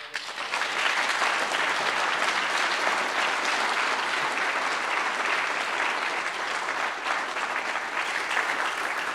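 Audience applauding: dense, even clapping from many hands that starts suddenly and eases slightly near the end.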